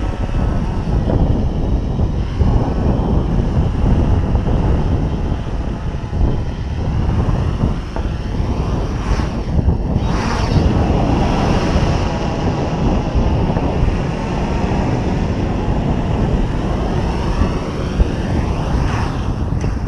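Quadcopter's electric motors and propellers buzzing steadily as it flies low and hovers near the ground. The pitch sweeps up and down a few times as the throttle changes.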